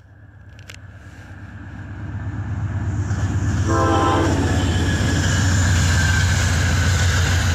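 Amtrak GE P42 diesel locomotive approaching and passing, its engine rumble growing steadily louder for about four seconds and then holding loud. A short horn blast sounds about four seconds in.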